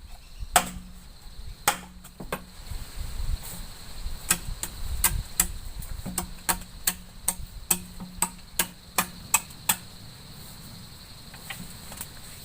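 A blade or tool chopping into wood in a quick series of sharp strikes, about two or three a second, that stop a few seconds before the end. A steady high cricket trill runs underneath.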